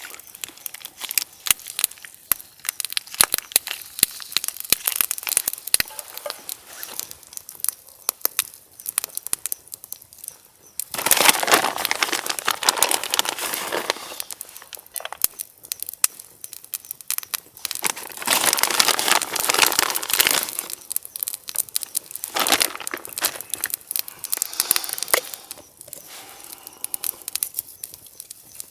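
Wood fire crackling with many sharp pops, with a few louder stretches of steady hiss, the longest about 11 to 14 seconds in and again about 18 to 21 seconds in.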